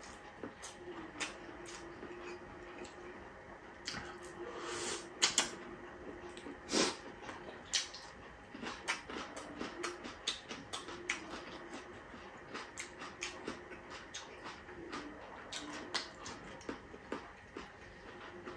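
Close-up eating sounds of a man eating with his fingers: chewing and lip-smacking with many short wet clicks, and fingers picking food off a plate. The loudest smacks come about five seconds in and again about seven seconds in.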